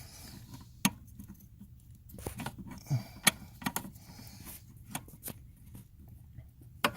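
Scattered sharp clicks and light metallic taps as a brake light switch is worked into its bracket under a car's dashboard, with handling noise between them.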